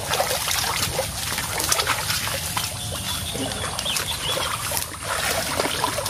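Shallow muddy stream water splashing and sloshing in irregular bursts as people wade through it and grope in the mud by hand.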